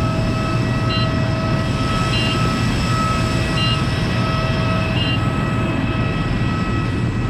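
Jet aircraft engines running at the airport: a steady, loud rumble with a constant high whine over it. Faint short chirps come four times, about every second and a half.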